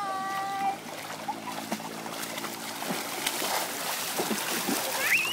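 Pool water splashing and sloshing as swimmers move through it. A short held voice call comes at the start, and a child's high voice near the end.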